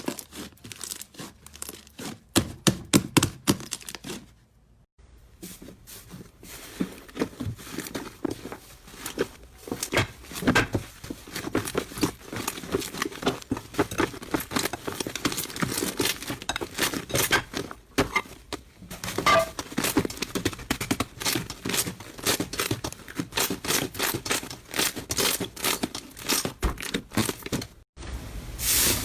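Slime being squeezed, stretched and poked by hand, a steady stream of sticky crackles, clicks and small pops. It breaks off for under a second about four seconds in.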